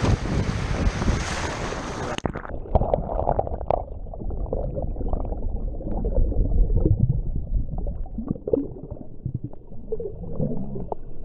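Wind and surf for about two seconds. Then the sound cuts suddenly to water heard underwater: muffled gurgling, bubbling and sloshing, with no high end.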